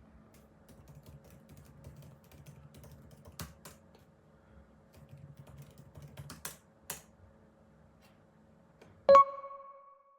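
A few faint clicks over a low hum, then a single bright ringing chime struck about nine seconds in that fades out over about a second.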